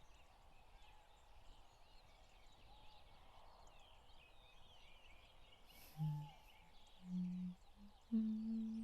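Faint forest ambience with small bird chirps, then about six seconds in a woman begins humming softly: a few low held notes, each a little higher than the last.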